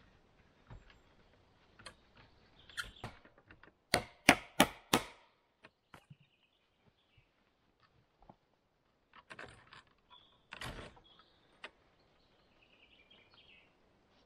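Round timber logs knocking and clunking as they are handled and set in place, with a quick run of four sharp knocks about four seconds in and another loud knock past the middle. A bird chirps faintly now and then.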